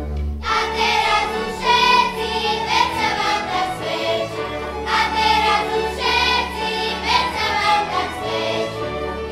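Children's choir singing a Slovak folk song together, over a folk string band of fiddles and double bass. The voices come in about half a second in, above a steady bass note.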